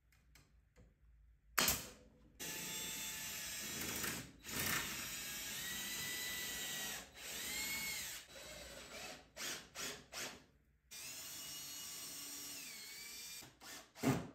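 Cordless drill driving screws into a pine frame: long runs of a steady motor whine that speeds up and slows down, with several short bursts between them. Near the start, one sharp snap of a nail gun firing.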